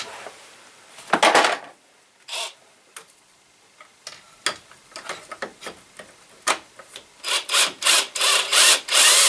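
Switch box being screwed to the drill column with a cordless drill. There are scattered clicks and scrapes, a short rasp about a second in, and a quick run of short rasping bursts over the last two seconds.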